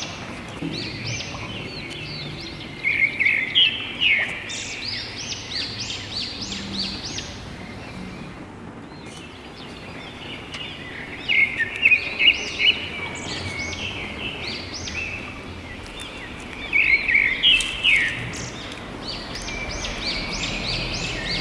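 Birds chirping: three bursts of quick, high chirps spread through the stretch, over a steady background hiss.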